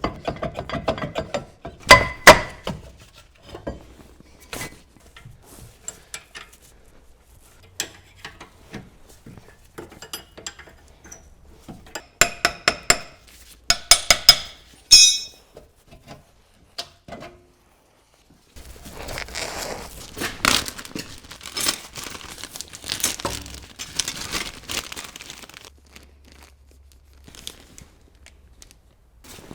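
Hand tools and steel brake parts clinking and knocking in scattered taps and clanks during rear brake disassembly, with a longer stretch of rough scraping noise in the second half.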